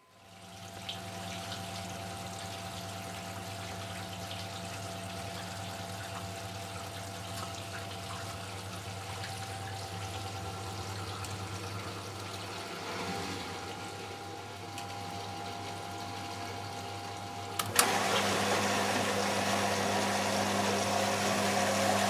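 1987 Siemens Siwamat Plus 285 washing machine taking in water at the start of its wash: water rushes into the machine with a steady hum. About eighteen seconds in there is a click, and the sound becomes louder and fuller.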